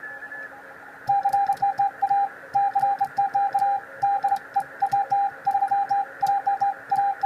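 Morse code beeps from a ham radio transceiver's sidetone, hand-keyed by a beginner: one steady mid-pitched tone switched on and off in an irregular run of short and longer beeps starting about a second in, over steady receiver hiss.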